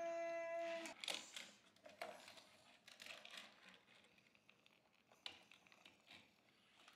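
Small scattered clicks and rattles of die-cast toy cars being pushed along and set down on a painted plywood play board. For about the first second a child's voice holds one steady note.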